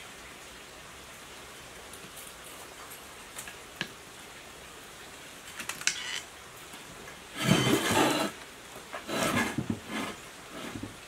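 Hands working an electric water-pump motor's metal stator casing on a wooden bench. First come a few light clicks and scrapes as the old copper windings are pried at. Then there are two louder bursts of scraping and rustling as the casing is shifted and turned upright.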